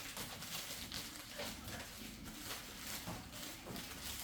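Rustling and handling noises of packages and bags being packed into a suitcase: a string of short, irregular scratchy rustles and light knocks.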